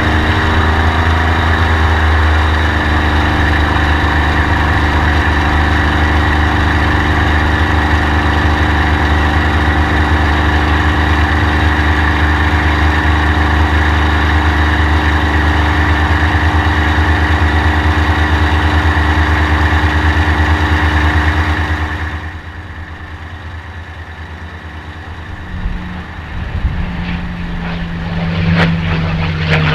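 Rolls-Royce Merlin V12 of a P-51 Mustang air racer running steadily with a deep hum and propeller. About two-thirds of the way through the sound drops away, then climbs in pitch and loudness near the end as the engine is opened up for the takeoff roll.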